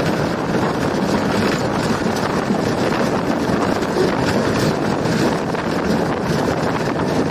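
Steady rush of wind on the microphone over the running noise of a PHA-20 diesel-electric locomotive moving along the track at speed.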